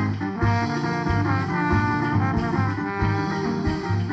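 Band music: an instrumental passage of a bumba-meu-boi toada between sung verses, with held melody notes over a steady low pulsing beat.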